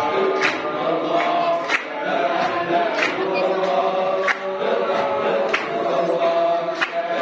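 Men's group chanting a dhikr of the Samman Sufi order, many voices held together in unison, with a sharp accent about every second and a quarter.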